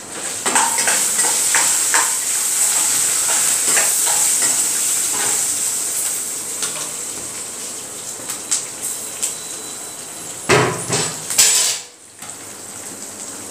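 Oil tempering of chillies, curry leaves and peanuts sizzling in a kadai over a gas flame, a steady high hiss. Over it, a spoon clicks and scrapes against a steel bowl as rice is stirred, and a few louder knocks of utensils come about ten seconds in.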